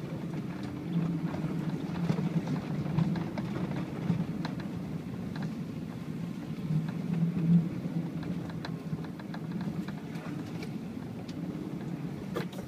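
Volkswagen Touareg V8 engine running steadily under light load as the 4WD climbs a rutted dirt track, heard from inside the cabin. Scattered clicks and knocks from the rough track come through over the engine, busiest around the middle.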